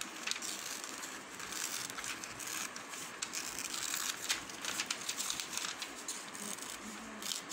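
Scissors snipping through a glossy magazine page along a drawn outline, many small cuts in a row, with the paper crinkling and rustling as it is turned.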